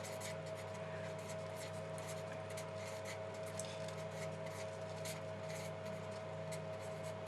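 A pen or marker scratching in short strokes as someone writes or draws, over a steady low electrical hum.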